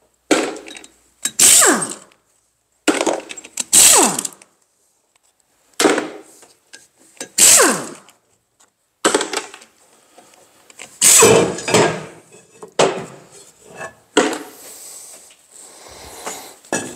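Pneumatic impact wrench rattling in a dozen or so short bursts, each ending in a falling whine as the air tool spins down, while it undoes the flywheel bolts on a seized diesel engine.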